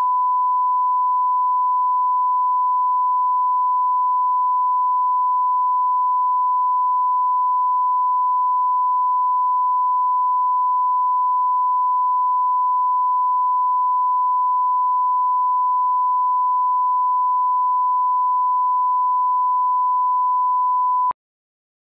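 Steady 1 kHz reference tone (broadcast line-up tone played with colour bars), one unbroken pitch that cuts off suddenly near the end.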